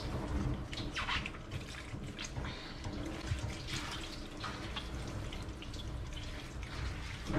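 Water dripping and trickling in a stainless steel grooming tub, with small irregular splashes, as a freshly rinsed long-haired cat's wet coat is squeezed out.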